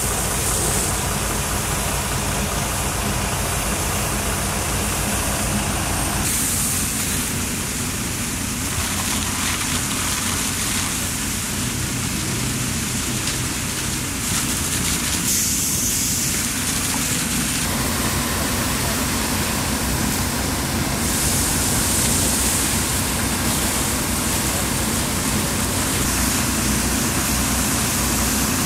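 A fire engine's engine and pump running steadily, with the rushing hiss of a water jet and spray over it. The sound changes abruptly about six seconds in and again near eighteen seconds.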